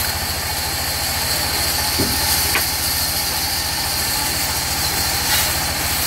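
Sawmill band saw and its drive running steadily, a fast even low throb under a constant high hiss, with a few light knocks.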